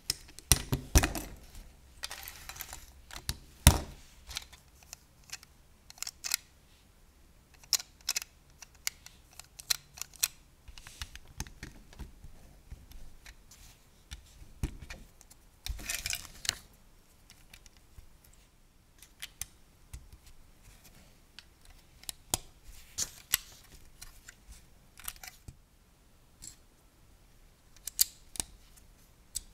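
LEGO bricks clicking as they are pressed and snapped onto a model by hand: irregular, sharp plastic clicks, a few louder snaps, and a couple of short stretches of pieces being handled.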